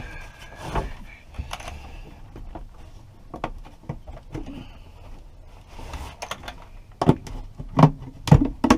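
Handling noise: irregular clicks, knocks and rustling of tools and containers being moved about, with several sharp knocks close together near the end.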